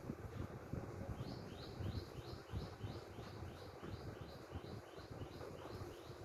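A bird chirping, a short rising note repeated about three times a second, starting about a second in, over a low rumbling background noise.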